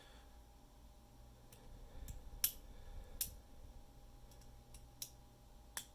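Lock pick and tension tool working in the keyway of a 10-wafer lockout padlock: about eight sharp metallic clicks at uneven intervals, the loudest about halfway through, with some soft handling rumble.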